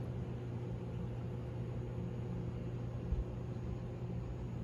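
Steady low hum of reef aquarium pumps running, with a constant noise of circulating water. A single brief low thump about three seconds in.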